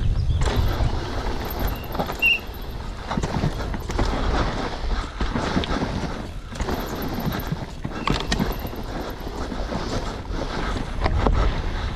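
Cube Two15 downhill mountain bike ridden fast over a dry dirt and rock trail: tyres crunching and skidding on the dirt, with many quick knocks and rattles from the bike over bumps, and wind rumbling on the microphone.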